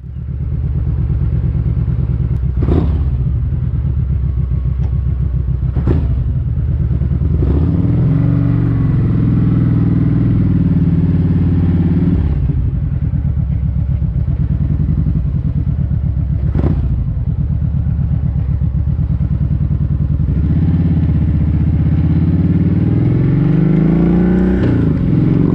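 Kawasaki Vulcan 1700 Vaquero's V-twin engine running under way, its pitch climbing and falling several times as the bike accelerates and shifts gears, with a few sharp clicks along the way.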